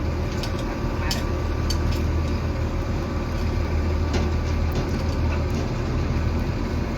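Heavy diesel machinery running steadily with a low hum, with scattered light clicks and knocks over it.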